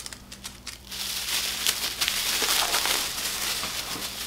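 Paper and plastic wrapping crinkling as a packaged prop knife is unwrapped: a few sharp crackles in the first second, then steady rustling.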